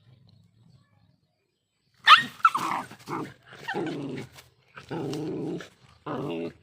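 Dogs snarling at each other over food. A sharp bark or yelp about two seconds in is followed by four growling snarls.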